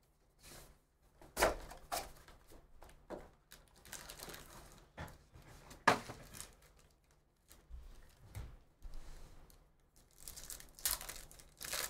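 Cardboard hobby box of trading cards handled and its foil packs crinkled and torn open: irregular crinkling and ripping, with sharp rips about a second and a half and six seconds in and a denser run of tearing near the end.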